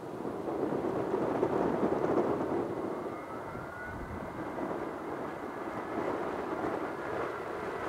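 Ilyushin Il-76 four-engine jet freighter landing, its turbofans giving a steady, noisy rumble, with a faint rising whine about three seconds in.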